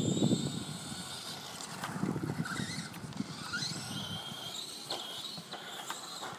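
Dromida 1/18 scale RC truck's electric motor and spur-and-pinion gears whining, rising and falling in pitch as the throttle changes. The truck runs on a NiMH pack with a freshly fitted motor and new gears. A low rumble of tyres on dirt fades after the first second or so.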